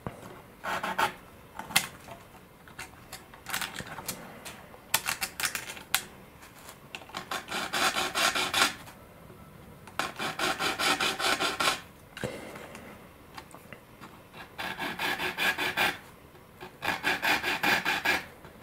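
Hand file rasping notches into the ends of RC glider pushrods with one sharp edge. It goes in about eight short runs of quick scraping strokes with brief pauses between them. The notches roughen the pushrod ends so that epoxy will key in.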